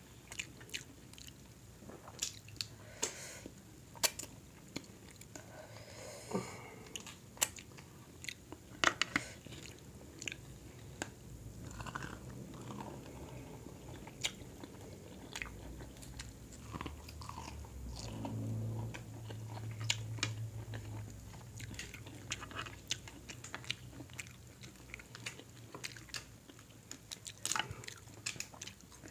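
Close-miked eating of a seafood boil: chewing and biting, with sharp clicks and crackles as boiled shrimp and crab shells are cracked and peeled by hand, scattered irregularly throughout.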